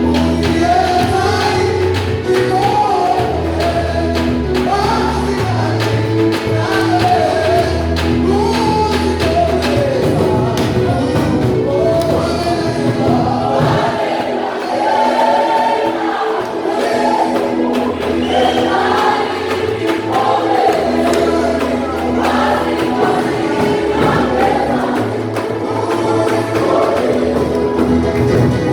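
Choir singing a gospel worship song over a held bass line, with quick percussion strokes.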